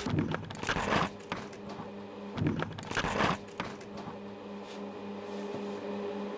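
Soft rustling and handling noises, a few brief bursts in the first three and a half seconds, over a steady low hum that sets in about two seconds in.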